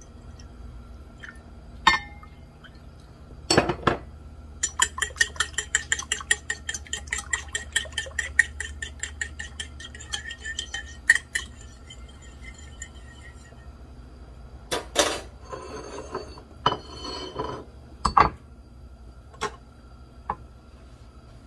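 Fork beating eggs and water in a ceramic bowl: quick, regular clinks of the fork against the bowl for about nine seconds. Then a few separate knocks of dishes being set down on a wooden cutting board.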